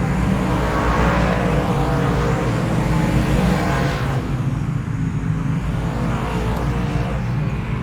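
Motor vehicle engine running with a steady low rumble. A rushing noise over it dies away about four seconds in.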